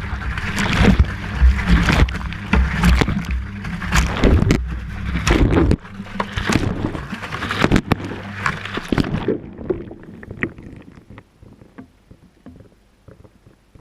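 Whirlpool washing machine in its wash cycle, heard from inside the drum: the motor hums while water sloshes and the camera knocks against the drum, then about six seconds in the motor stops and the water settles into faint drips and trickles. This is the wash rhythm of tumbling, then a pause.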